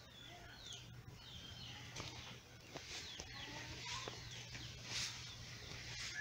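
Free-range chickens calling faintly, a scatter of short, high chirping notes and soft clucks, with a few light clicks.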